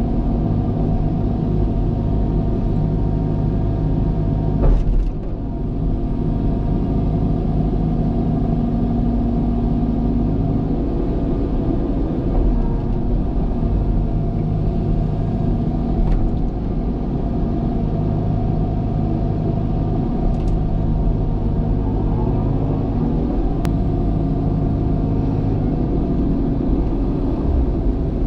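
Diesel engine of a tracked earthmoving machine running steadily under working load, with a sharp knock about five seconds in and a few fainter clicks later.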